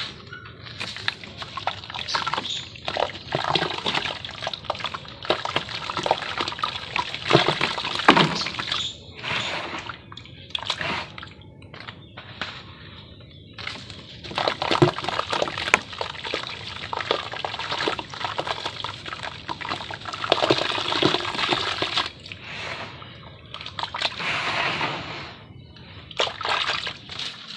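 Dried sand-and-cement shapes being dipped in water: irregular sloshing and splashing with scattered sharp clicks, broken by a couple of short lulls.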